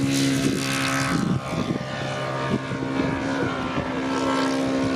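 Radio-controlled scale biplane's engine and propeller running at takeoff power as it lifts off and climbs away, a steady drone that thins out a little after about a second.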